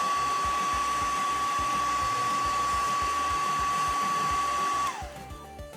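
Conair hair dryer blowing, a steady whine over rushing air. About five seconds in it is switched off and the whine falls in pitch as the motor spins down.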